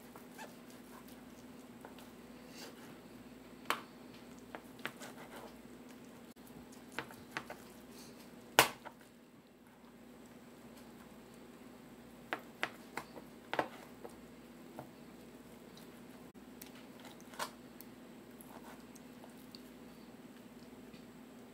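Kitchen knife slicing through grilled chicken breast and knocking on a cutting board: scattered, irregular taps, the loudest a little past eight seconds in and a quick cluster around twelve to fourteen seconds, over a steady low hum.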